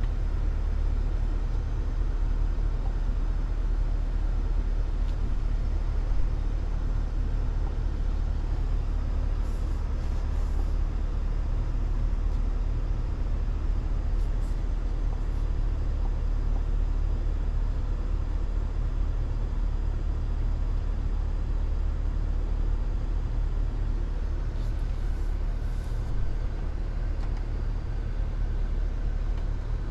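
Cabin noise of a 2023 Chevrolet Tahoe Premier on the move: a steady low rumble of road, tyre and drivetrain noise heard from the driver's seat.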